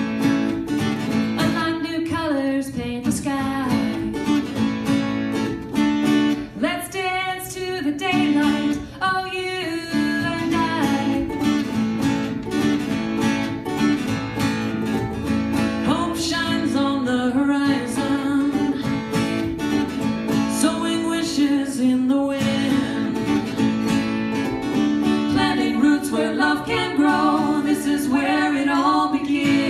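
Guitar played steadily with a singer's voice, a live performance of a song; the sung lines stand out about six to ten seconds in and again near the end.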